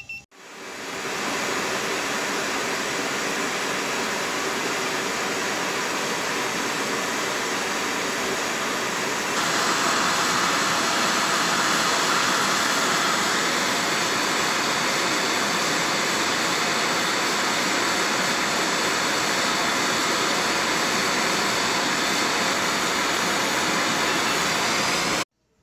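MAPP gas hand torch burning with a steady, hissing flame, preheating a cast axle knuckle. It grows a little louder about nine seconds in and cuts off suddenly near the end.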